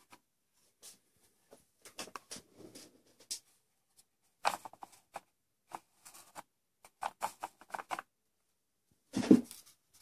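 Wooden combination lock being handled and turned over in the hand: irregular clicks, scrapes and clatters of its plywood frame and wooden discs, in bunches, with one louder wooden knock about nine seconds in.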